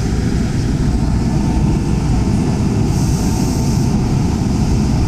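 Steady low machine rumble from a DMG Mori NLX 4000 CNC turning centre running a cutting cycle, with a short hiss about three seconds in.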